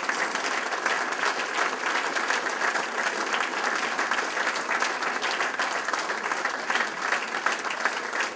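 Audience applauding, many hands clapping steadily.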